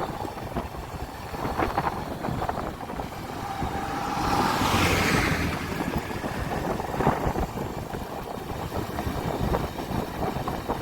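Vehicle road noise while travelling, with wind on the microphone; the noise swells for a couple of seconds about four seconds in.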